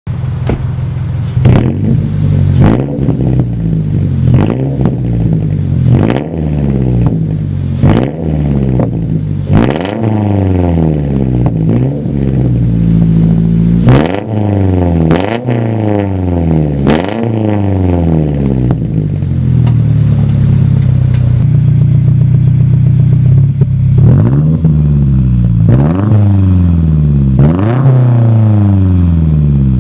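2013 Subaru Impreza 2.0i's FB20 flat-four engine revved again and again through its exhaust: quick blips that rise sharply and fall back toward idle, about one every one to two seconds, with a steadier stretch near idle in the later part and a few more blips near the end.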